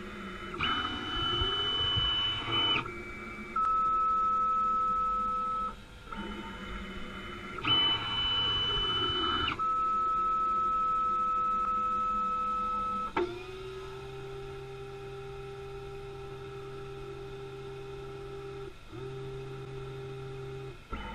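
DGSHAPE DWX-42W wet dental milling machine's motors whining as the spindle and workpiece clamp move between positions. The sound is a series of steady tones that change pitch every few seconds: a high whine twice in the first half, a steady mid-pitched tone after each, then a lower hum for the last third, broken briefly near the end.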